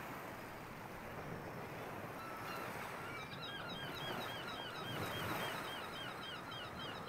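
Outdoor ambience with a steady wash of background noise, and birds calling in quick, repeated chirps that start about two and a half seconds in and grow busier.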